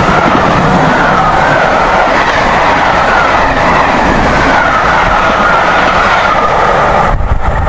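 Rake of passenger coaches passing at speed on steel rails: a loud, steady rush of wheel and rail noise with a wavering high-pitched squeal over it. The noise stops abruptly at the very end.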